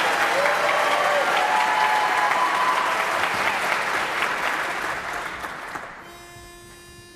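Audience applause with a few cheers, dying away about six seconds in. Then a single steady reedy note sounds: a pitch pipe giving the barbershop chorus its starting pitch.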